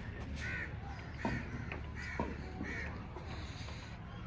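A bird calling four times in short, arched calls about 0.7 seconds apart, with a couple of sharp knocks in between.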